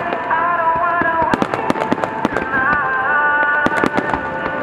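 Dense barrage of aerial firework shells bursting, a rapid irregular run of sharp bangs and crackles. Held pitched tones that bend now and then sound steadily underneath.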